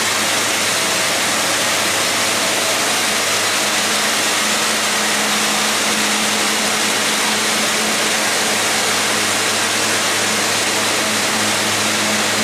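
Concrete scarifier and its attached industrial dust vacuum running steadily while stripping an old coating off a concrete floor: a loud, unbroken rushing noise over a low steady hum.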